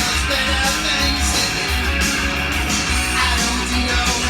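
Rock music playing from a vinyl record: electric guitar over bass and drums with a steady beat.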